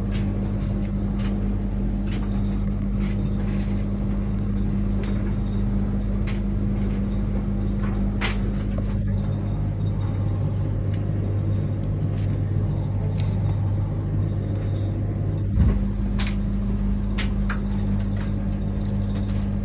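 Steady low electrical hum of a washing machine running, with scattered light clicks and one thump about 15 seconds in.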